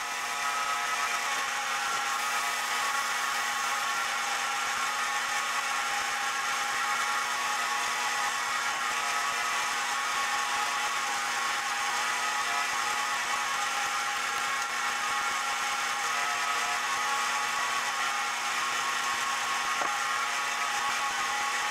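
Chinese mini lathe running at a steady speed with an even whir, spinning an aluminum rod that is being sanded and polished against abrasive paper and a cloth. The sound cuts off abruptly at the very end.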